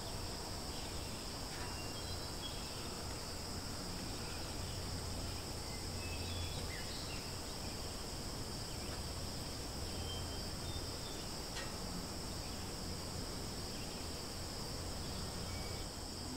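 Steady, high-pitched chorus of insects, with a low hum underneath and a few faint short chirps scattered through.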